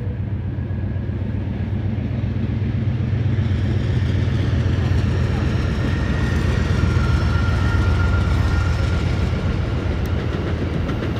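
Amtrak GE Genesis diesel locomotive hauling a passenger train across a steel girder bridge: a low engine drone that grows louder as the locomotive passes, peaking a little past halfway. Near the end the clatter of the coaches' wheels over the rail joints comes in.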